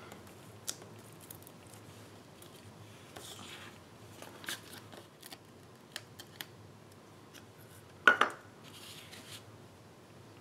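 Small clicks and short rustles of paper crafting: Stampin' Dimensionals foam adhesive squares being peeled from their backing sheet and handled for the back of a card label, with one louder brief rustle about eight seconds in.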